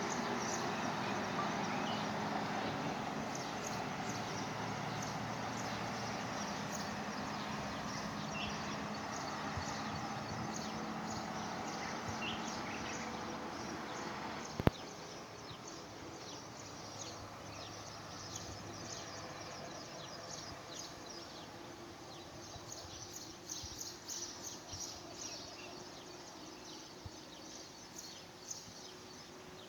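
Outdoor ambient noise, a steady hiss that fades a little after the first half, with a few faint bird chirps. A single sharp click comes about halfway through, and a run of light quick ticks fills the last third.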